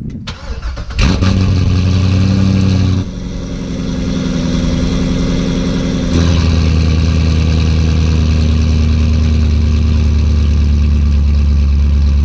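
C6 Corvette V8 starting up: it fires about a second in and runs at a steady idle. The note changes about three seconds in and again about six seconds in.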